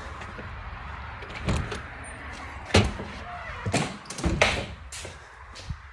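A door being handled and shut, with footsteps walking away. There are scattered sharp knocks and clunks roughly a second apart over a steady low background noise.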